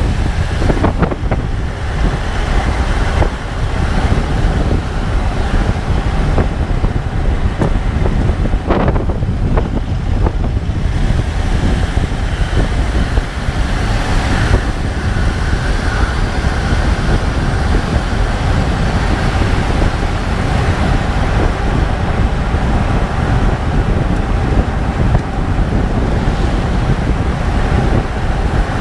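2014 Range Rover Sport SDV8 driving at low speed: a steady heavy rumble of road and wind noise, with a handful of sharp clicks, mostly in the first ten seconds. The clicks are the unexplained low-speed clicking the owner is trying to trace.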